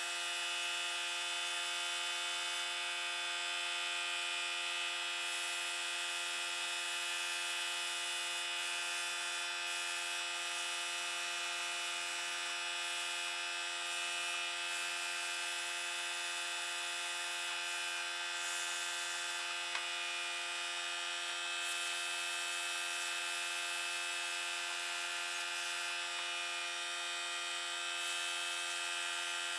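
A small electric motor, such as a power tool, running steadily with an even hum and whine that holds constant throughout.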